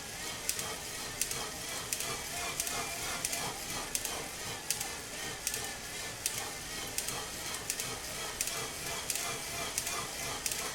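Irregular sharp clicks or crackles, one or two a second, over a steady hiss, with a faint wavering tone beneath.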